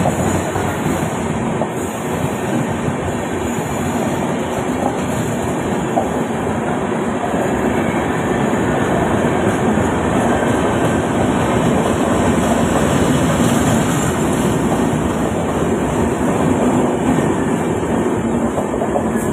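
Indian Railways express passenger coaches rolling past at speed: a steady, loud rumble and rattle of steel wheels on the rails.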